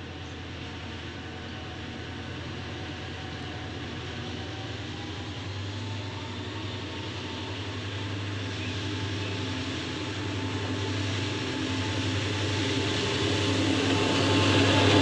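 A train approaching: a steady rumble with a low hum that grows gradually louder, loudest near the end.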